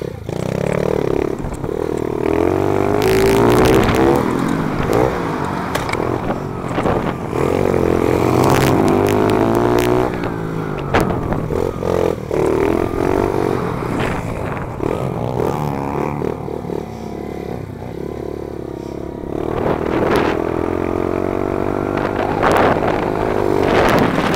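Small single-cylinder four-stroke pit bike engine with an FMF exhaust, heard from on board as it is ridden around a dirt track. It revs up and eases off again and again, with a lower-revving stretch past the middle. Sharp rattles and knocks cut in several times.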